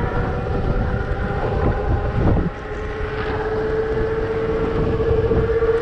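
Wind rushing over the microphone of an electric bike riding at about 22 mph, with a steady motor whine that grows clearer about three seconds in.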